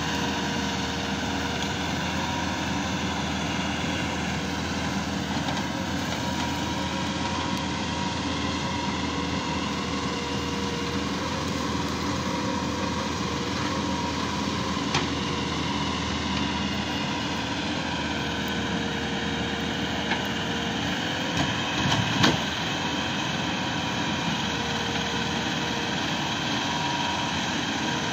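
Diesel engine of a JCB 3C backhoe loader running steadily while it digs, with a few short knocks about two-thirds of the way through.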